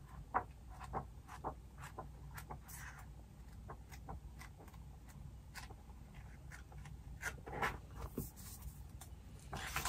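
Pages of a new paper planner being turned and handled: faint, scattered soft rustles and light taps, coming closer together and a little louder near the end.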